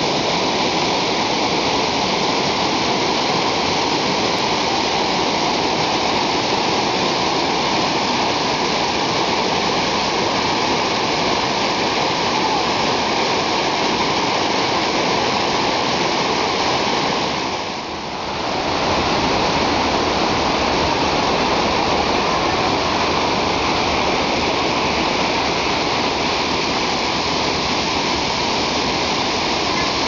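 Hot-spring waterfalls and cascades rushing over rocks into pools: a loud, steady rush of water that dips briefly a little past halfway.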